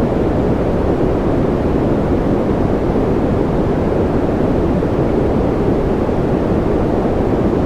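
Steady white-noise track: an even, low rushing hiss that never changes, heavier in the low and middle range than in the treble.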